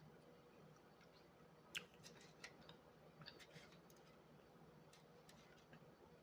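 Near silence with a few faint, scattered clicks and crackles from quiet eating, the sharpest about two seconds in.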